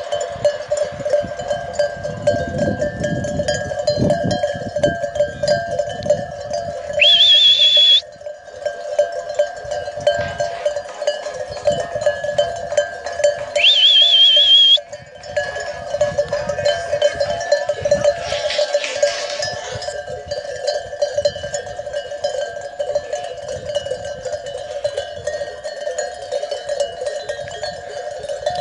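A flock's sheep bells ringing together in a steady chorus. Twice, about 7 and 14 seconds in, a loud, shrill warbling whistle sounds for about a second.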